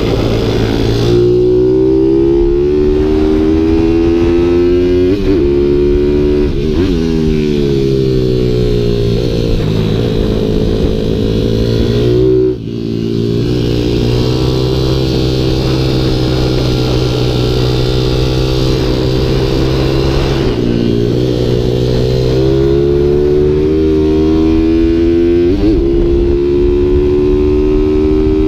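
Pit bike supermoto's single-cylinder engine running hard while ridden, its pitch rising and falling as the rider works the throttle and shifts gears, with a brief drop in power about twelve seconds in.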